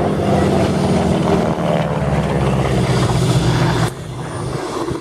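A North American Harvard's radial engine and propeller droning as it flies past, mixed with a helicopter's rotor and turbine running on its pad. The sound drops suddenly about four seconds in.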